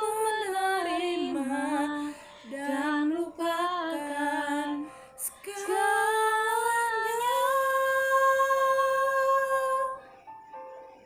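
A female voice sings an ornamented melodic run, bending through several pitches, then holds one long note that stops about ten seconds in.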